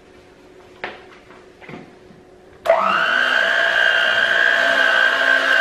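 Electric hand mixer switched on about halfway through, its motor then running with a steady whine as the beaters turn in a bowl of cupcake batter.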